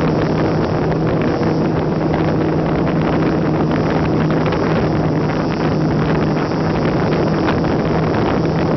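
Brushless electric motor and propeller of a GWS Slow Stick RC airplane running steadily in flight, a constant hum, heard from on board with heavy wind rushing over the microphone.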